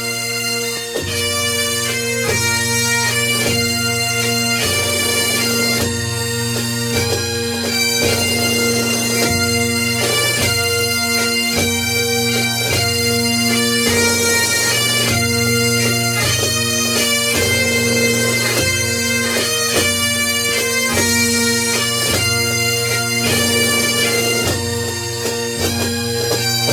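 Music on a droning wind instrument: a melody of changing notes played over steady, unbroken drone tones.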